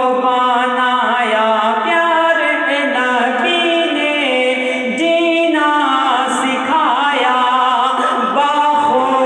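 A man singing a naat unaccompanied into a microphone, drawing out long notes that glide up and down in pitch.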